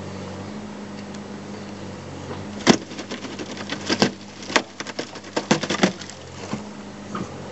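Steady low drone of the pipe-bursting rig's engine. From about three seconds in, an irregular run of sharp cracks and snaps as the old steel-reinforced concrete sewer pipe fractures around the bursting head.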